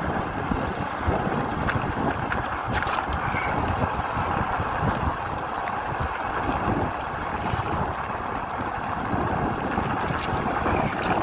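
Strong wind buffeting the microphone on a moving e-bike, over a steady hiss of rain and tyres rolling on a wet trail.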